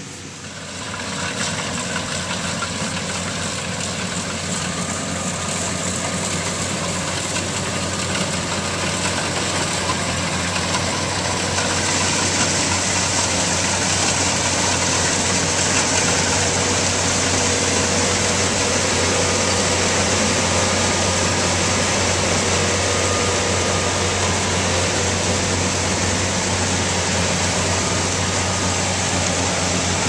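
Kubota DC-95GM crawler combine harvester running steadily while cutting rice, its engine and machinery making a continuous drone. It grows louder about a second in and again around twelve seconds in.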